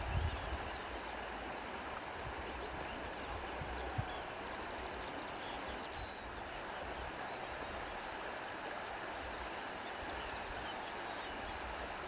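Steady outdoor wind noise, with low rumbles of wind buffeting the microphone, strongest at the very start, and a single soft knock about four seconds in.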